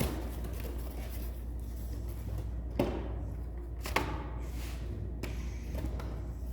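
Steel impact sockets being handled and set down: a few separate sharp clicks and knocks, about four, over a steady low hum.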